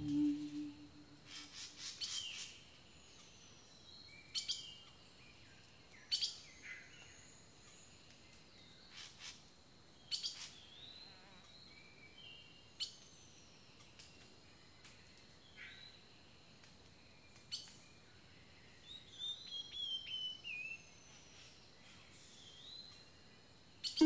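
Songbirds chirping: scattered sharp single chirps and short whistled calls, fairly faint, with a quicker run of notes near the end.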